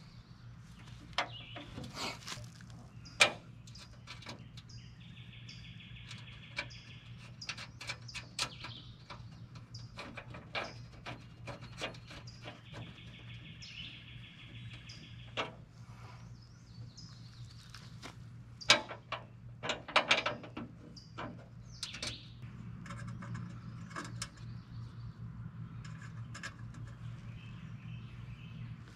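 Scattered clicks and knocks of bolts, washers and nuts being fitted by hand through a UTV's plastic cargo-bed panel to mount D-ring tie-down anchors, with a few sharper knocks near the middle. A high trill of about two seconds sounds twice, over a steady low hum.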